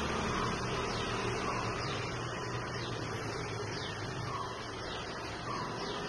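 Steady outdoor background hum and hiss, with faint, brief high chirps scattered through it.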